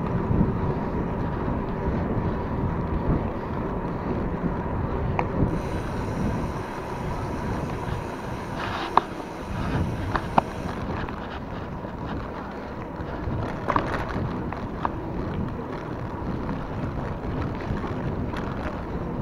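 Wind buffeting the microphone with steady road rumble while riding, broken by a few sharp clicks about nine and ten seconds in.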